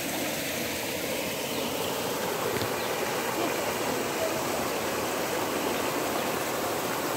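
Steady rush of fast-flowing monsoon floodwater, an even, unbroken noise.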